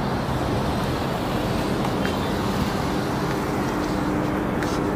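Steady road noise of a car on the move, with a faint engine hum coming in about three seconds in.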